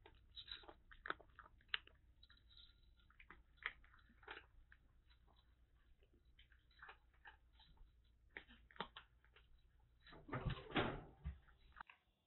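A cat crunching dry kibble: faint, irregular crisp crunches. About ten seconds in comes a louder, longer noise with low thuds.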